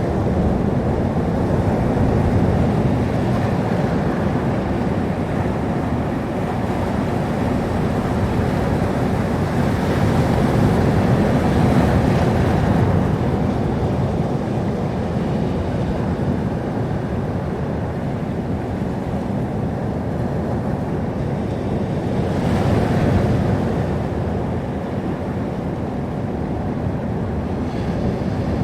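Sea surf: a steady rumble of waves, swelling as waves break about ten seconds in and again near twenty-three seconds.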